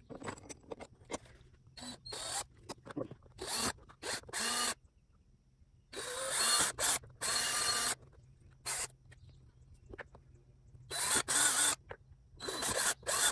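Power drill boring holes, run in several short bursts of one to two seconds with pauses between.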